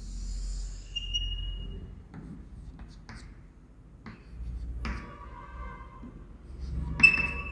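Pen writing on a surface, in short scratchy strokes with a few small clicks.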